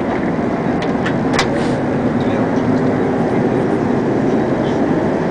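Steady in-flight cabin noise of an Airbus A380-800: a constant rush of air and engine hum that is not as quiet as expected. A single sharp click comes about a second and a half in.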